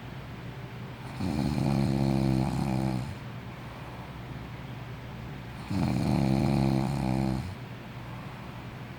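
A sleeping person snoring: two long, rattling snores about four and a half seconds apart, with quieter breathing between them.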